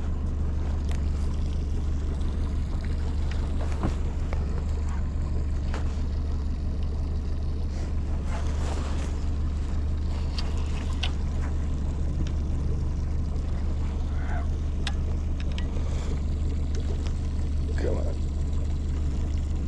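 Outboard motor on a fishing boat running steadily, a constant low hum, with scattered small clicks and knocks on top.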